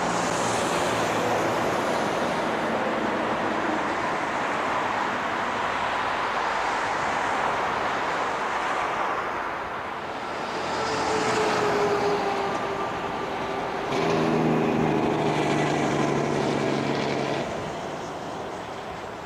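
Jet airliner engines running loud and steady as a narrow-body jet rolls out after touchdown. Near the end a Boeing 737-700's engines pass close, adding a steady whine for a few seconds before the sound fades.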